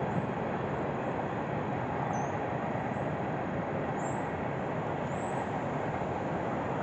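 Distant Union Pacific freight train rolling past, its cars making a steady rumble and rail noise.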